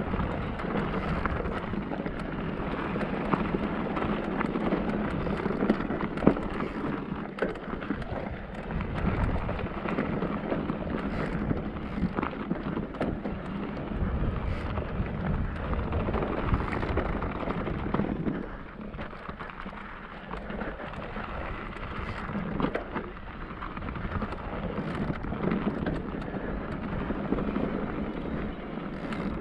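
Cube Stereo Hybrid 160 e-mountain bike riding down a dirt trail: a continuous rumble of tyres over dirt and stones, with frequent clicks and knocks from the bike rattling. The noise eases off briefly about two-thirds of the way through.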